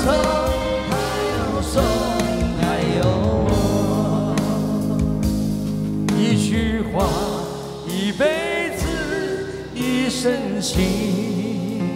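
Live band music with a singer's voice holding long, wavering notes over the backing.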